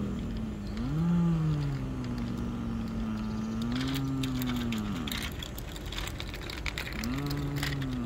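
A person's voice imitating a truck engine: a long, low, drawn-out hum that rises, holds steady for about four seconds, swells again and falls away, then returns briefly near the end. Light clicks of the plastic toy trucks on concrete come in the middle.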